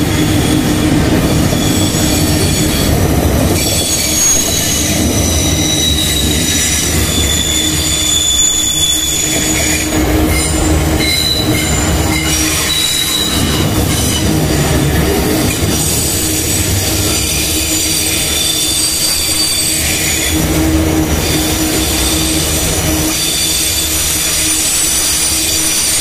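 Heavy freight train of covered wagons rolling past close by, with a steady rumble of wheels on rail. High-pitched wheel squeal comes and goes over it.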